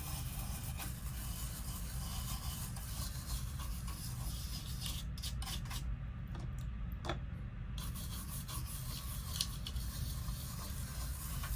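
A brush scrubbing a freshly resoldered TV power-supply circuit board with lacquer thinner, a steady scratchy rubbing that keeps on without a break. The scrubbing cleans off the leftover solder flux and loose solder balls.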